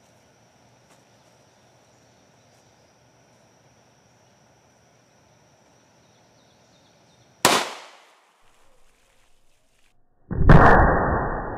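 .45 ACP pistol shot, one sharp report about three quarters of the way in, firing a Barnes Tac-XPD round through a board into a water-filled bucket. Near the end the same shot comes again, slowed down in the slow-motion replay: louder, deeper and muffled, drawn out as a long fading boom.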